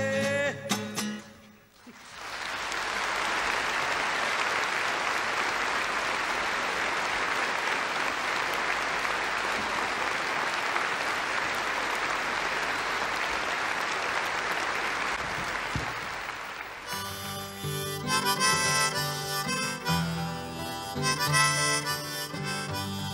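A concert audience applauding steadily for about fifteen seconds after a song ends, fading out. About seventeen seconds in, an acoustic guitar and a harmonica played from a neck holder start the next song's intro.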